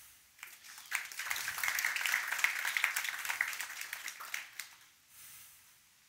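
A small audience applauding: the clapping starts about a second in, swells, and dies away after about three and a half seconds.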